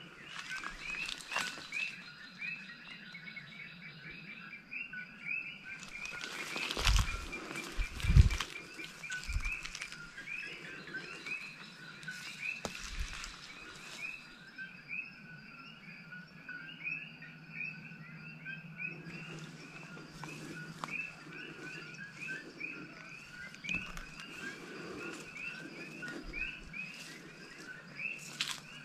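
A dense evening chorus of coqui frogs, many short two-note calls repeating without pause. About seven and eight seconds in come a few louder rustles and thumps of movement through the brush.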